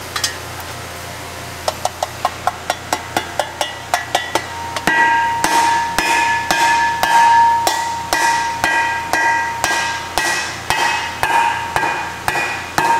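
A hammer tapping a machined metal ring into the coolant jacket of an engine block to seat it on its step. It starts with quick light taps, about four a second, then turns to harder blows about twice a second that leave the metal ringing.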